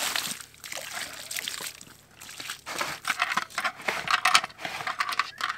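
Water poured from a bucket into a plastic poultry drinker, splashing briefly at first, then a run of clicks and knocks as the plastic drinker is handled and lifted.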